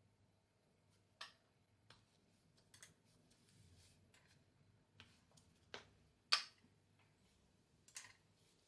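Near silence broken by about six light, scattered taps and clicks, the loudest a little over six seconds in.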